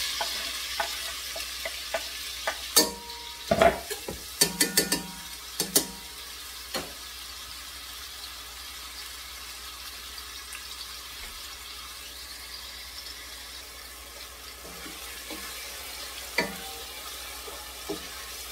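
Chopped onion frying in hot oil in a stainless steel pot, a steady sizzle. A cluster of sharp clacks and knocks comes a few seconds in as the onion is scraped off a wooden cutting board with a spatula into the pot. Lighter knocks near the end are a wooden spoon stirring.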